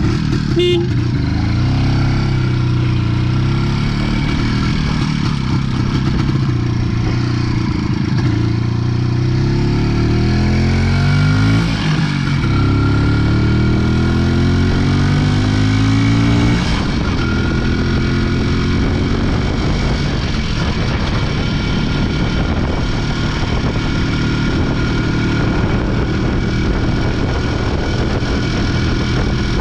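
Izh Planeta 4's single-cylinder two-stroke engine running, its pitch rising and falling with the throttle. After about sixteen seconds the sound turns rougher and noisier, without the clear engine tones.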